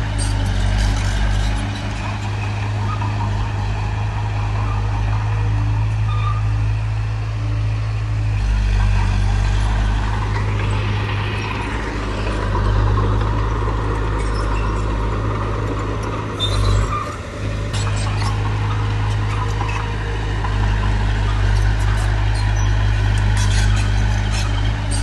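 Heavy construction machinery's diesel engine running steadily under work, with a brief dip in the engine note about two-thirds of the way in and scattered sharp metallic clanks.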